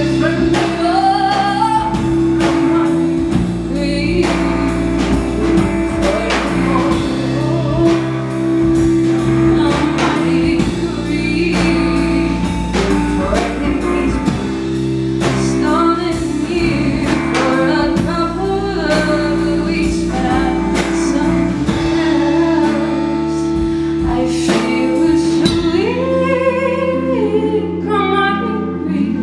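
A live band playing a song: a woman sings the lead over guitar, bass and drum kit.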